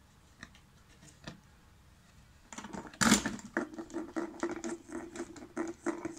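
Maine Coon cat pawing and scratching among small items in a drawer. A couple of faint clicks come first. From about two and a half seconds in, a quick run of scrapes and clicks follows, with a louder knock about three seconds in and a steady low drone under the later clicking.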